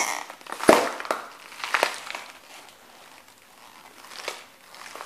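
A whole red bell pepper crushed under a Lowa hiking boot. It cracks open loudest just under a second in, and several smaller crunches follow as the boot presses and grinds it flat.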